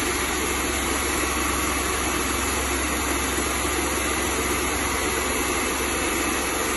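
Wagner Control Pro 250M airless paint sprayer's pump running steadily with a constant low hum, flushing water through on the prime setting to clean it out.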